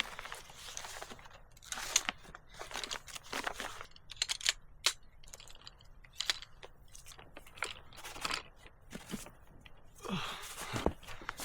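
A small folding camp chair being unpacked and set up: irregular crunches, sharp clicks and crinkling of its frame and fabric.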